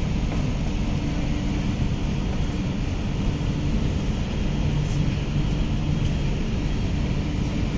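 Steady low hum and rush of a CRRC Qingdao Sifang Q-Train metro train standing at a platform, its on-board equipment running.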